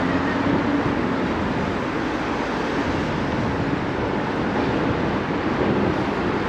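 Steady wind and road noise from a bicycle riding through city traffic, picked up by a camera mounted on the rider or bike. A faint low hum from a vehicle rises briefly near the start and again near the end.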